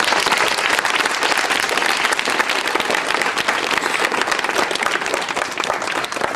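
Audience applauding, many people clapping at once, the applause thinning and dying down near the end.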